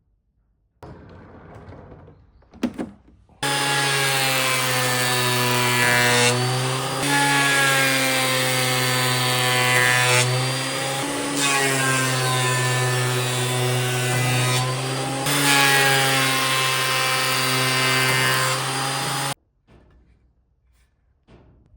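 Corded woodworking machine running and cutting wood, its motor hum dipping in pitch several times under load and then recovering; it starts and stops abruptly.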